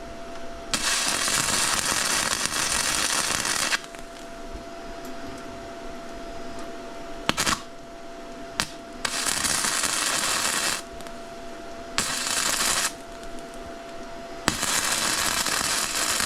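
Wire-feed welder laying short beads: four bursts of steady crackling hiss, each starting and stopping abruptly, the first about three seconds long and the others shorter, with a faint steady hum and a couple of clicks between them.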